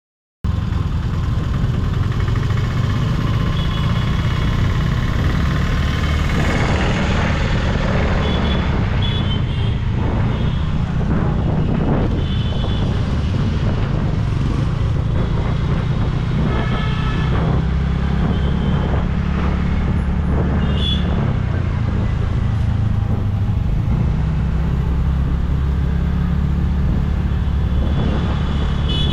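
City road traffic heard from a moving scooter: a steady, loud low rumble of the ride, with short horn toots from surrounding vehicles several times, from about a third of the way in onward. The sound cuts in abruptly just after the start.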